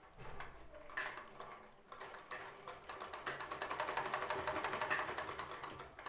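Sewing machine stitching a seam, a rapid run of even mechanical clicks from the needle and feed that speeds up and grows louder through the middle and slows near the end.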